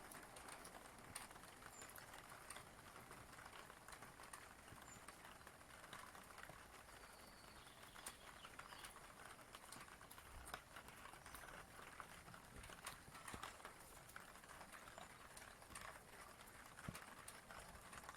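Faint rain: a steady soft hiss with many scattered drops tapping at irregular intervals.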